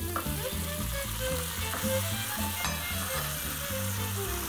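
Frying-pan sizzle as browned chicken pieces are slid from a plate back into the hot pan of softened red onions, olives and thyme, with the pieces shifting and being stirred in the fat. The chicken is going back in to braise with the onions.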